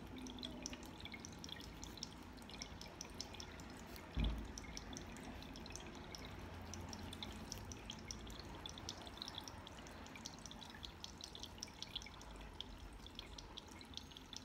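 Small tabletop water fountain trickling, with many quick drips. A single thump about four seconds in.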